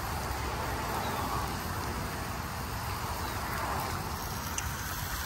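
Steady outdoor background noise with a low, fluctuating rumble and no distinct events.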